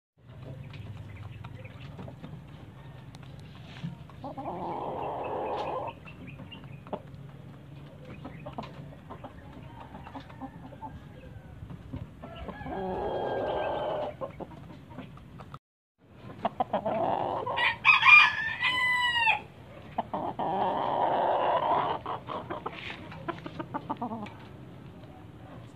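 Roosters crowing four times, each crow a second or two long and several seconds apart, the loudest about 18 seconds in, with some clucking between.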